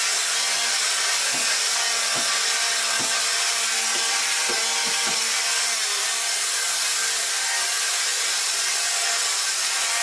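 Upright vacuum cleaner running steadily on carpet while being pushed back and forth, with several light knocks in the first half.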